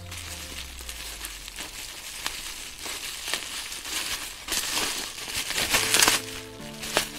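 Bubble wrap crinkling and crackling as it is pulled off a small plastic figurine, loudest a little past halfway. Background music comes back in near the end.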